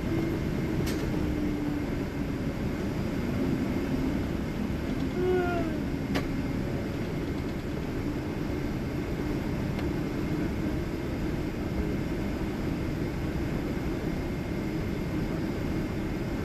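Steady rumbling cabin noise inside a Boeing 777-300ER on the ground after landing, with a low hum and two faint clicks about one and six seconds in.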